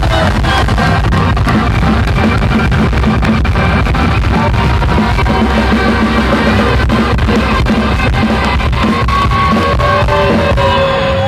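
Live band playing rock music on drum kit, guitar and keyboard, with a steady beat.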